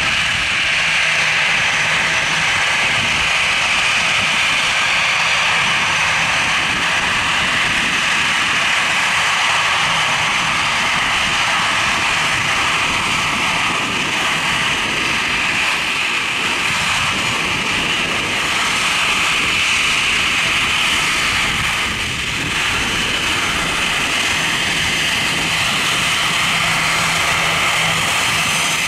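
Airbus A340-300 taxiing past, its four CFM56-5C jet engines running with a steady high whine over a low rumble.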